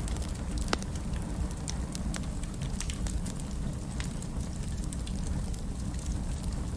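Fire burning in a fireplace: a steady low rumble of flames with irregular sharp crackles and pops, one louder pop near the start.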